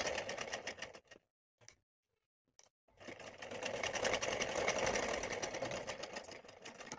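Sewing machine stitching a line of seam: a brief run at the start, a pause of about two seconds, then a longer steady run of rapid, evenly spaced stitches that stops just before the end.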